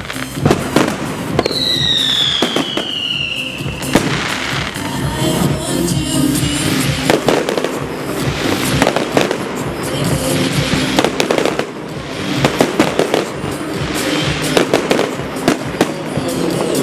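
Aerial fireworks bursting in rapid succession, sharp bangs and crackle, with a long falling whistle early on for about two seconds. Music plays underneath.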